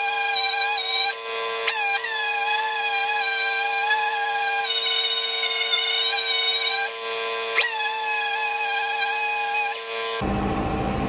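Dual-action orbital sander with a 120-grit disc and no backing pad sanding a plastic car bumper back to bare plastic: a steady high whine whose pitch sags briefly several times as it is pressed into the surface. It shuts off about ten seconds in.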